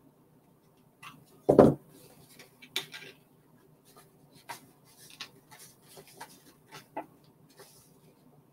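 A hot glue gun set down with a single thump on the table about a second and a half in, then light taps and rustling as paper craft pieces are pressed together and handled.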